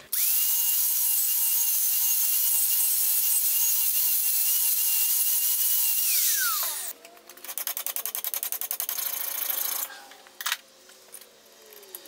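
A handheld power tool running with a steady high whine, winding down about six seconds in. A fast run of rapid, even ticks follows for about three seconds.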